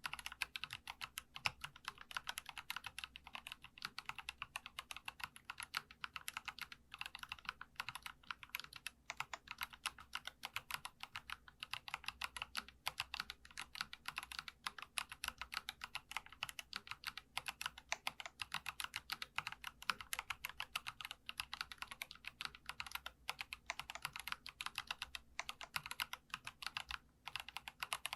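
Fast continuous typing on a Geekstar mechanical keyboard, a steady stream of light, crisp keystrokes with a few brief pauses.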